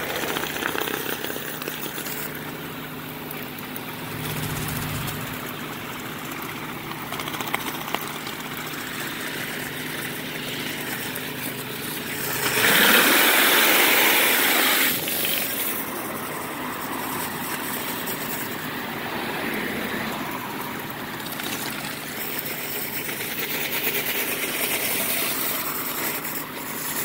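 Pressure washer running with an HPComponents surface cleaner, its spinning spray bar hissing steadily against concrete over a low machine hum. About halfway through the hiss surges much louder for a couple of seconds as the cleaner is pushed against the stone retaining wall, throwing up a cloud of spray.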